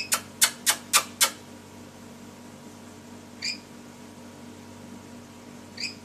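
Caged lory giving a quick run of five short, harsh shrieks, about four a second, then two short chirps a couple of seconds apart.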